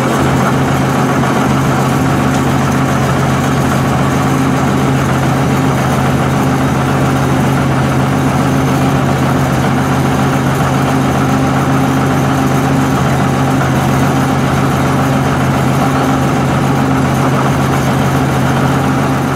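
Caterpillar D9 bulldozer's diesel engine running at a steady idle, an even low drone that holds the same speed throughout.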